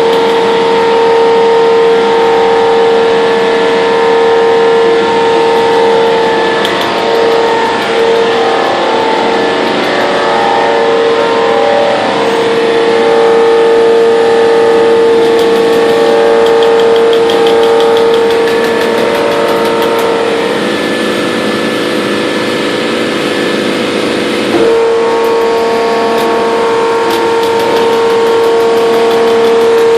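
Trumpf TC500 CNC punch press punching thin aluminum sheet: a loud, steady high-pitched machine whine with runs of rapid punching clicks. Near two-thirds through, the whine drops away for a few seconds, then comes back with a single knock.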